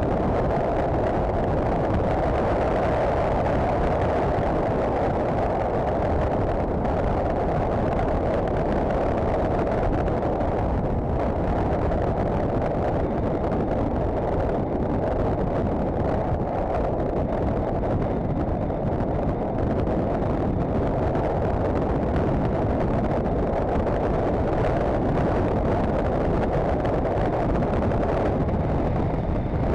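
Honda CBF1000 motorcycle cruising at a steady speed: an even, muffled rush of wind and engine noise with no change in pace.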